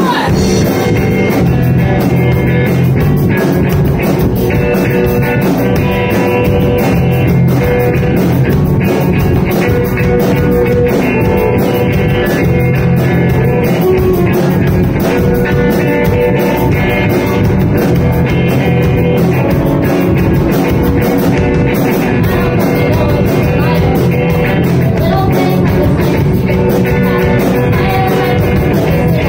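Live rock band playing loudly: electric guitar, drum kit and keyboard, with vocals.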